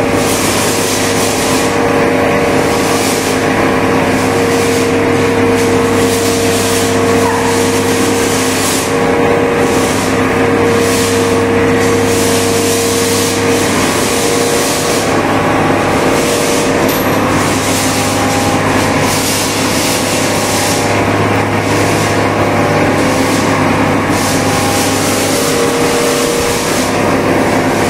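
Steady machine drone of hydraulic chassis-straightening equipment running while the sagging rear of a truck chassis is pushed up into alignment: a constant low hum with a hiss over it.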